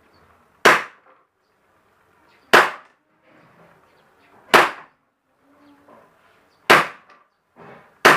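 WE-18 gas blowback airsoft pistol firing five single shots about two seconds apart, each a sharp pop with a short tail as the gas charge cycles the slide; the last shot comes at the very end.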